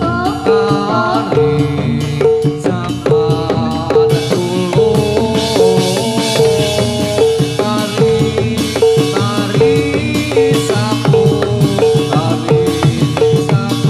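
Loud jathilan gamelan music playing without a break: drumming and percussion under a pitched note struck about twice a second, with a wavering melody above.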